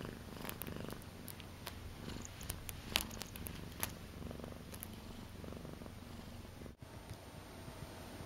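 Domestic cat purring quietly and steadily, close to the microphone, with a few small clicks over it; the sound drops out for an instant a little before the end.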